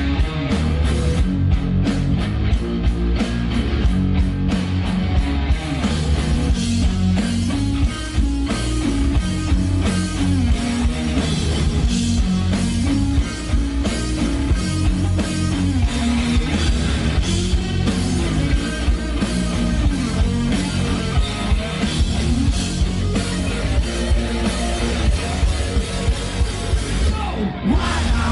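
Rock band playing live, with electric guitars over a drum kit.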